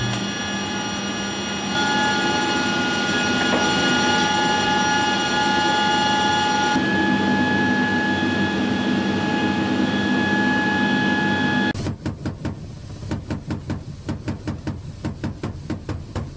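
Steady whine and hum of aircraft machinery in a C-5 Galaxy cargo hold, several high steady tones over a rumble. About two-thirds of the way in it cuts to the rapid, even pulsing beat of a helicopter's rotor in flight.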